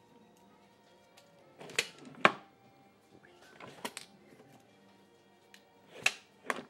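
Sharp wooden clacks and knocks from a wooden puzzle box as its sliding inner drawer is pushed in and pulled out and the box is handled on a wooden bench, about six in all, the loudest a little over two seconds in. Faint music plays underneath.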